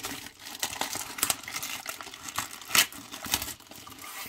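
A shipping tube for a rolled diamond painting canvas being opened by hand: crinkling plastic wrap with a run of irregular sharp clicks and snaps, the loudest a little before three seconds in.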